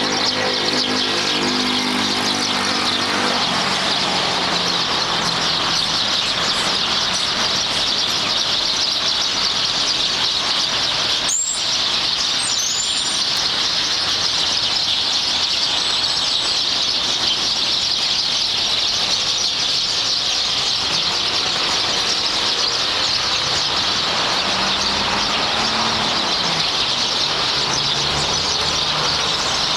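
Dense, unbroken chatter of a roosting flock of hundreds of small birds, many calls blurring into one steady high din. Road traffic passes underneath, with an engine hum in the first few seconds and again near the end, and a single sharp click about a third of the way in.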